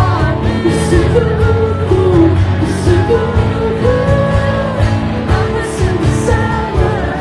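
Pop-rock song with a band of drums, bass and guitar playing under a gliding, wordless vocal line, with a steady beat and a cymbal hit about once a second.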